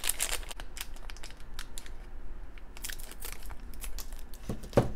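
Thin clear plastic bag crinkling as fingers work it open around a small figure: a run of quick, irregular crackles. A short, louder low thump comes near the end.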